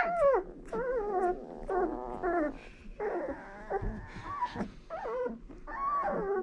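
Twelve-day-old Komondor puppies whining and whimpering: a loud falling cry at the start, then a string of short, wavering cries.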